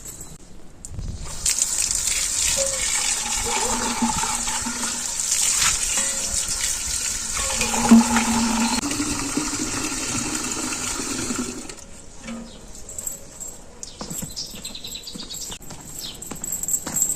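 Water running or pouring into a vessel for about ten seconds, starting about a second in and stopping abruptly, with faint shifting tones in the splash as the vessel fills.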